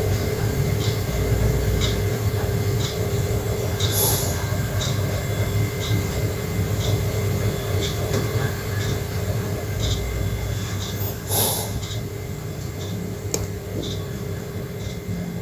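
Gas stove burner running steadily under a metal plate of oil cups, with a low rumble and a steady hum. A faint tick repeats about once a second, and two sharper cracks come about 4 and 11 seconds in.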